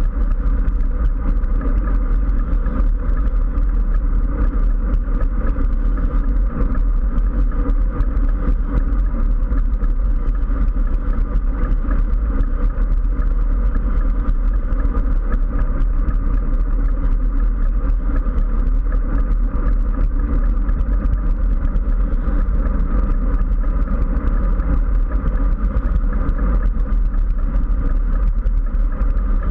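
Steady wind rush and low road rumble on a GoPro mounted on a road bike riding at speed, loud and unbroken.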